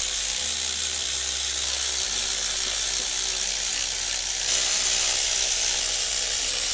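Sealey power ratchet's motor whirring steadily as it spins out valve cover bolts, getting a little louder and higher about four and a half seconds in.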